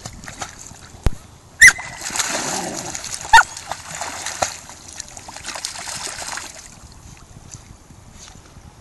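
Dogs splashing as they wade and swim through shallow water, with two sharp, high-pitched dog barks, one just under two seconds in and another about three and a half seconds in. The splashing fades out over the last couple of seconds.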